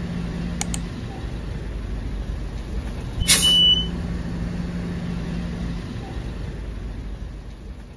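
Steady low rumble of a vehicle engine, with a short loud burst of hissing and a brief high beep a little over three seconds in.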